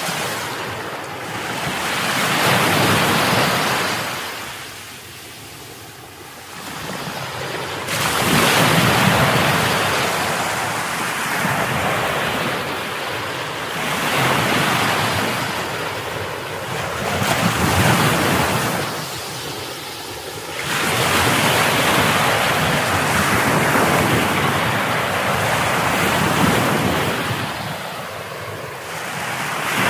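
A loud rushing noise that swells and fades every few seconds, with no steady tone in it.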